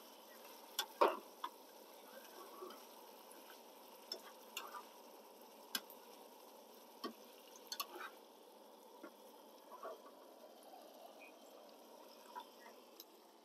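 Food cooking in a steaming pan on a camp stove: a steady sizzle, with a utensil clinking and scraping against the pan as it is stirred, the loudest clink about a second in.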